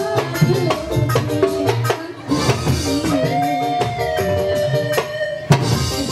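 Live dangdut music: hand drums keeping a quick, steady beat under a melody, with a woman singing into a microphone. The music drops out briefly about two seconds in, then carries on.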